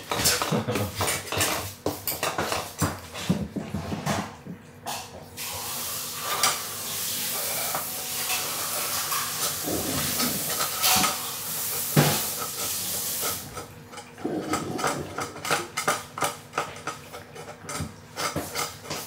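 Cats licking and eating from food dishes, with small clinks and taps of the bowls. In the middle a steady hiss runs for about eight seconds.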